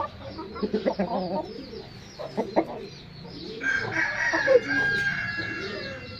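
Aseel chickens clucking, with a rooster crowing about three and a half seconds in, one long held crow of about two seconds.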